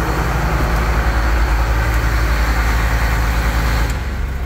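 Tractor's turbo-diesel engine idling steadily, the rumble shifting a little near the end. It is running on its low idle, which is set too low.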